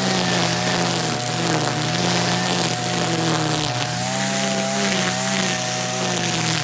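Brush cutter engine running at high speed while its line head cuts through tall grass, the pitch dipping and recovering slightly several times as it meets the grass.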